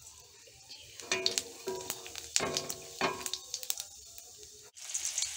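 Metal spatula scraping and stirring cumin seeds frying in hot oil in a black iron kadai, with a few scrapes ringing briefly against the pan. Near the end a loud, steady sizzle takes over.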